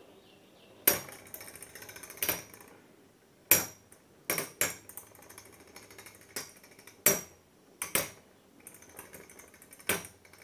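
Two Beyblade spinning tops, Burn Phoenix and Phantom Orion, knocking against each other in a plastic stadium: about ten sharp clacks at uneven intervals, with a faint steady hum between them.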